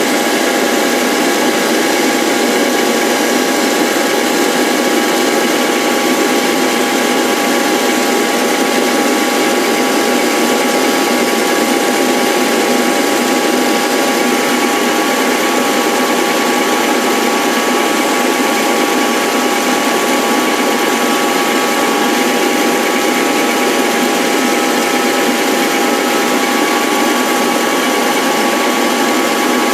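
A power tool's motor running steadily, a constant whine of several fixed pitches over a rushing noise.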